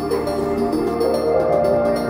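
Ambient background music: soft held notes that change pitch every so often.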